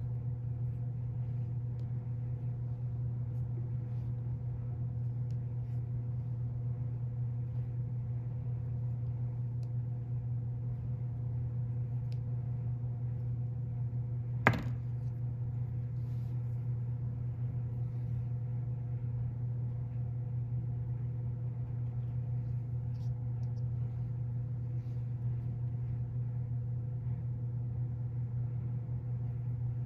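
Steady low mechanical hum of room machinery, with one sharp click about halfway through.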